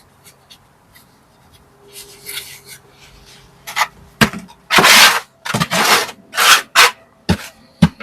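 Hand tools scraping and knocking on brick and mortar during bricklaying: a quiet start, then a quick run of scrapes and sharp taps, the longest scrape about five seconds in.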